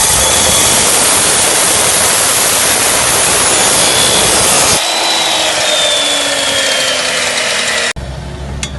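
A power cutting disc, such as an angle grinder or chop saw, cutting through steel with loud, dense grinding noise. About five seconds in the cutting stops and the disc spins down with a falling whine. Near the end the sound cuts off abruptly, leaving a low hum and a few clicks.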